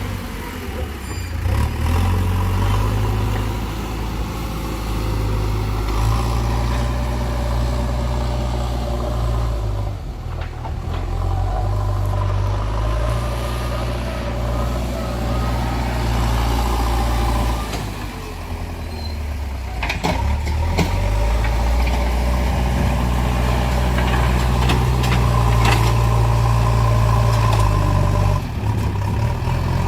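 A vehicle engine running, its low note shifting up and down, with a few short knocks.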